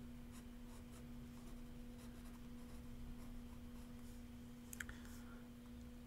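Faint scratching of a Faber-Castell 0.7 sepia ink pen drawing strokes on sketchbook paper, over a steady low hum, with one sharper click near the end.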